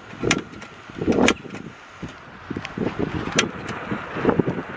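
Metal cooking tongs clinking and knocking against a metal pot on a portable gas stove: a few sharp clinks among softer knocks, over steady wind noise.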